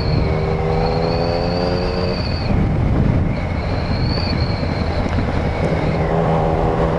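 Yamaha MT-09's three-cylinder engine running at a steady cruise, with a steady rush of wind and road noise. The engine note holds one pitch for about the first two seconds, fades back into the wind, and returns near the end.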